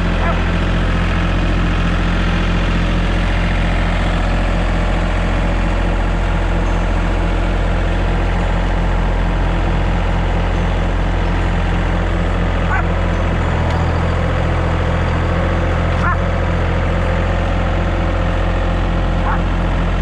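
An engine running steadily at idle, a deep even hum, with a few brief high chirps over it.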